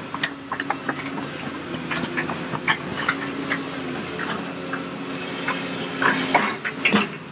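A heavy machine's engine running steadily, with many irregular clicks and knocks over it and a louder clatter about six seconds in.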